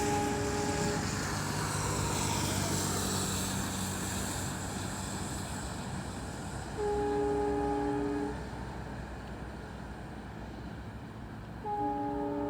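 Diesel locomotive's multi-tone horn sounding three times: a blast ending about a second in, another of about a second and a half around the middle, and a third starting near the end. Under it the train's low engine rumble fades away.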